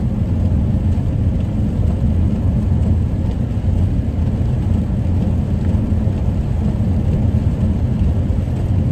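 Steady low rumble of a minivan being driven on a wet road, with tyre and engine noise heard from inside the cabin.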